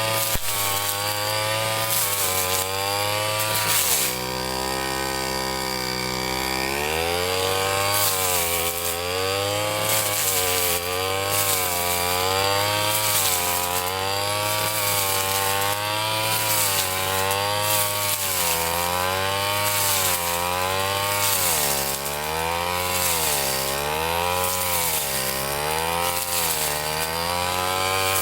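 Ryu 30.5 cc two-stroke brush cutter running while cutting grass, its engine pitch rising and falling every second or two as the head takes the load. The engine settles to a lower steady speed for a couple of seconds about four seconds in, then speeds up again.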